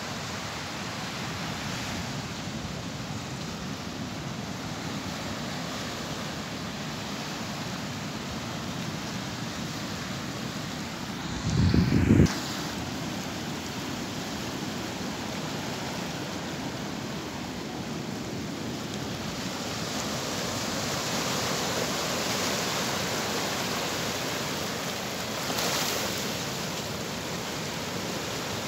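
Small sea waves washing onto a sandy beach: a steady surf hiss that grows fuller in the second half, with a brief swell near the end. About twelve seconds in, a short, loud, low rumble stands out.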